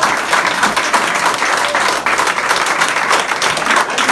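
A roomful of people applauding, loud and continuous, with many hands clapping fast and unevenly.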